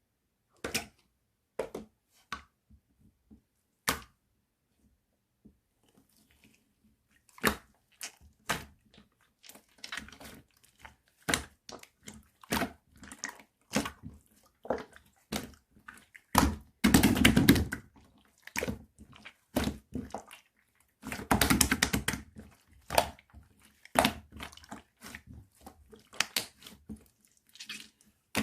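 Close-up handling sounds of craft materials: a run of short taps and clicks, with two longer rustling stretches about sixteen and twenty-one seconds in.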